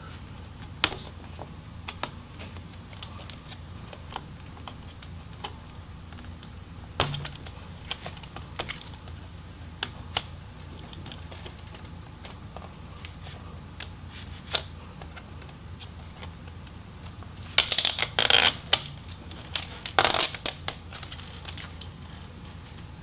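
Scattered small clicks and taps of hands working on a laptop's motherboard and its plastic ribbon-cable connectors, with a louder burst of clicking and rattling about eighteen seconds in and another about two seconds later.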